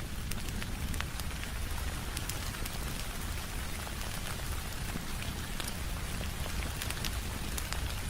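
Steady rain, with many scattered sharp ticks and a low rumble underneath.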